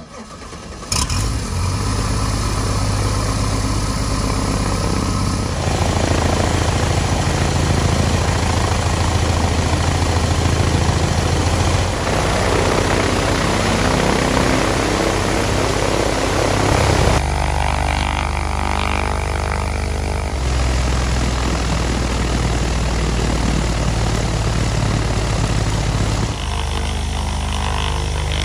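Light aircraft's UL Power piston engine and DUC Cobra constant-speed propeller running up on the ground, coming in suddenly about a second in and running loud and steady, with its tone changing abruptly several times.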